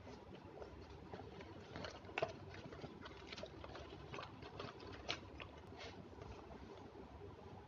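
Faint rustling and scattered small clicks of hands handling a fabric backpack and rummaging inside its front pocket, with a few sharper clicks about two seconds in and again about five seconds in.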